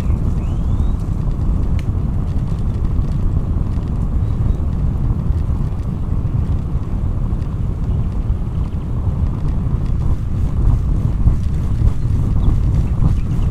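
Steady wind noise rumbling on the microphone of a camera carried on a moving bicycle.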